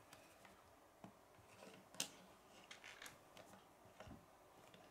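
Faint clicks and taps of small plastic Lego pieces being handled and pressed together, the sharpest about two seconds in.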